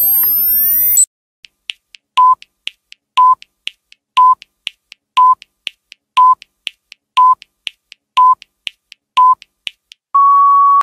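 Electronic sound effects: rising synthetic sweeps that cut off about a second in, then a short electronic beep once a second, eight times, with faint ticks between, ending in a long steady tone at the same pitch.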